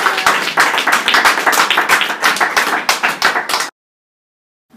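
A small audience applauding with dense, irregular hand claps that cut off abruptly to silence near the end.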